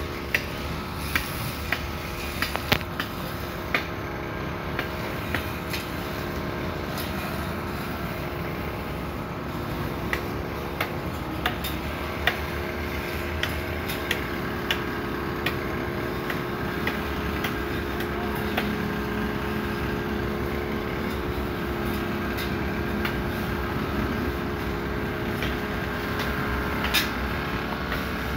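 Steady outdoor background hum with a few constant tones, broken by irregular sharp clicks and knocks.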